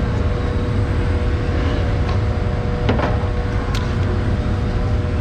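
Street traffic: a steady low engine rumble with a faint constant hum, and a couple of short clicks about three seconds in.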